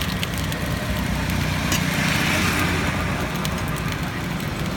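Round rice cakes frying in oil in a wide steel pan, a light sizzle with a few sharp clicks of a metal spatula, over the steady low hum of an idling engine.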